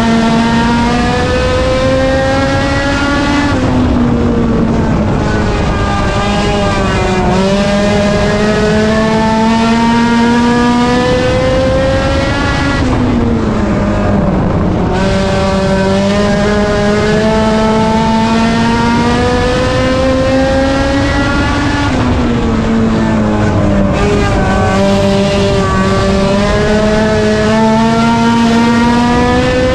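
Race car engine at full throttle on an oval, its pitch climbing slowly and then dropping sharply three times as the driver backs off for the turns.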